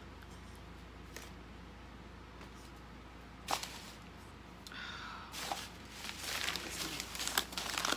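Packing paper rustling and crinkling as a wrapped plant is handled and unwrapped, busy in the last three seconds, after a quiet stretch of low room hum and a single knock about three and a half seconds in.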